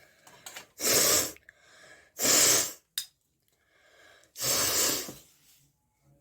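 A person blowing air out hard through the nose three times, with softer in-breaths between the blasts.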